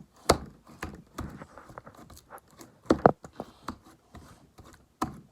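Sticky slime being pressed flat and pulled with the hands, giving irregular sticky crackles and pops, with a few sharper slaps about 0.3 s, 3 s and 5 s in.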